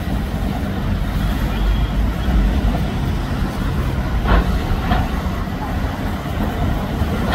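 A mainline diesel locomotive running with a heavy low engine sound as it works a train of brake vans and wagons away over pointwork. About four seconds in there are two sharp clicks of wheels over rail joints.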